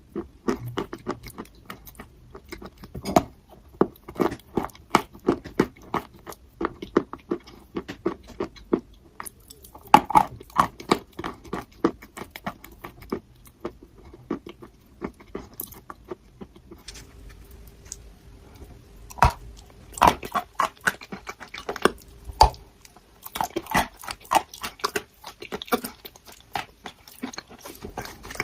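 Person biting and chewing crunchy eating chalk close to the microphone: a long run of sharp, irregular crunches with short lulls between bites.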